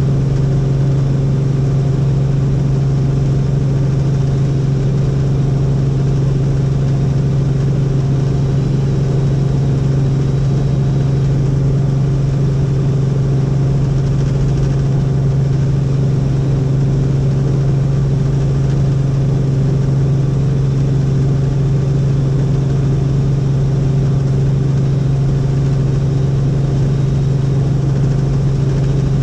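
Helicopter in flight: a loud, steady drone of rotor and engine with a strong low hum that does not change.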